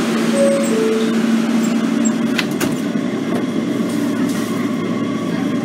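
Kawasaki R160B subway car running along the track, heard from inside: a steady rumble of wheels on rail, with a motor hum that stops about two seconds in and two sharp clicks shortly after.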